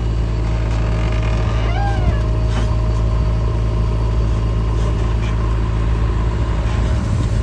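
Heavy diesel engine running steadily with a low drone and a faint steady whine above it.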